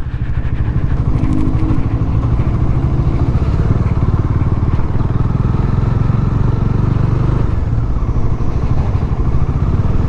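Motorcycle engine running on the move, a steady, fast low pulsing of its firing strokes. A brief steady two-note tone sounds over it from about a second in, for about two seconds.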